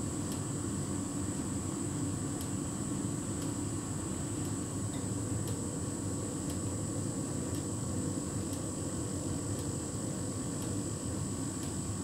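Hotpoint heat pump tumble dryer running steadily mid-cycle, its drum turning a duvet: an even mechanical hum with a faint steady high tone over it.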